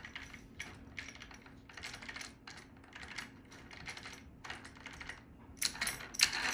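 Spur gear of a large-scale gas RC car (HPI Baja platform) turned by hand against the clutch bell pinion to check the gear mesh, the teeth clicking in short runs. Near the end it is spun and runs on freely with a louder, continuous clatter.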